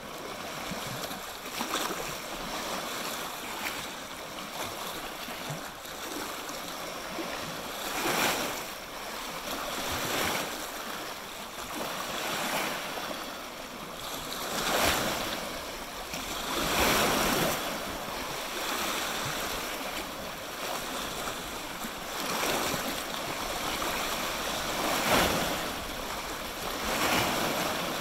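Small lake waves washing and lapping on the shore, the sound swelling and ebbing every few seconds, with a few louder surges.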